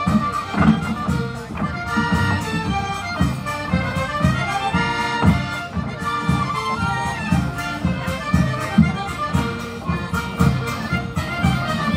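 Live Polish folk dance music from a small band led by an accordion, playing a lively melody over a steady, regular beat.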